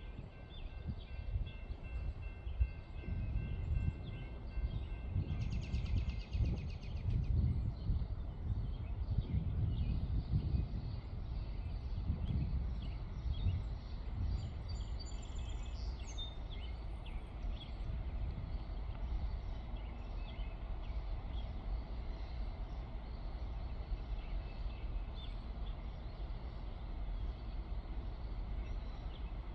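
Low, uneven rumbling of a distant freight train, heaviest in the first half, with birds chirping over it.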